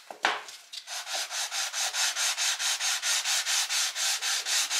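A Volvo Penta 2003D heat exchanger part being hand-sanded on abrasive paper laid on flat glass. After a couple of light knocks, steady strokes of rubbing start about a second in and go at about four a second. It is flattening the end faces so they seal against the end caps.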